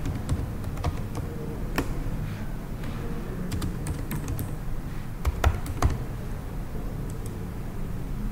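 Typing on a computer keyboard: irregular key clicks as a name is entered, with a few louder keystrokes about five to six seconds in, over a steady low hum.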